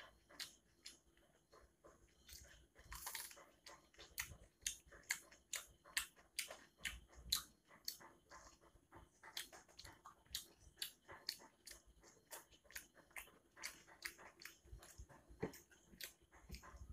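A person chewing a mouthful of rice and curry close to the microphone: a quick run of wet mouth clicks and smacks, several a second.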